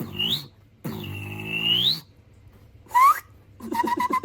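Beatboxers' mouth sounds: a short whistle-like tone sweeping up in pitch, then a longer one that curves up at its end, a brief rising chirp, and a fast run of tonal clicks starting near the end.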